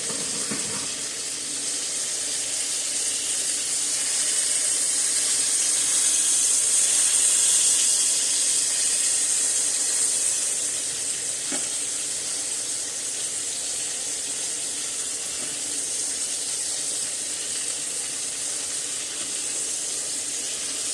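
Steak sizzling in a frying pan, a steady high hiss that swells slightly for a few seconds in the middle. There is a single faint tap of a utensil midway.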